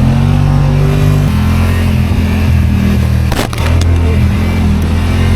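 Vehicle engine running at a steady speed, its pitch shifting once about a second in, with a single knock about three and a half seconds in.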